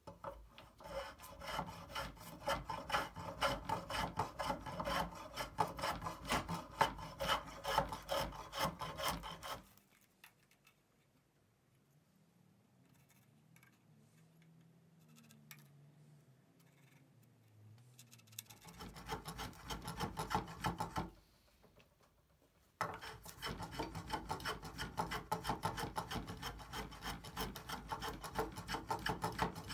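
A small hand plane working the rounded wooden head of a mallet held in a vise, shaving wood in rapid short strokes. The strokes stop for several seconds around the middle, return briefly, pause again, then carry on to the end.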